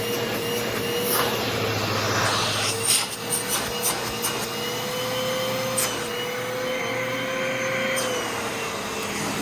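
Hoover Elite Rewind upright vacuum cleaner running steadily, its motor whine drifting slightly in pitch, with a few sharp clicks along the way.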